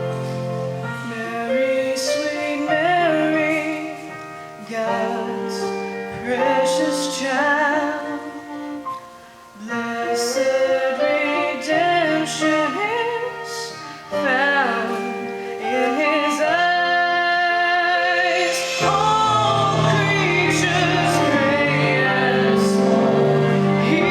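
A solo voice singing a Christmas song with vibrato over sustained instrumental accompaniment.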